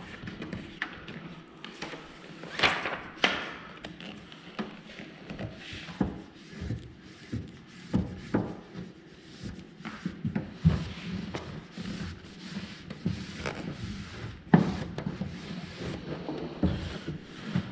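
Handling noises from fitting a vinyl graphic onto a race car body panel: scattered knocks and taps with rustling and rubbing between them.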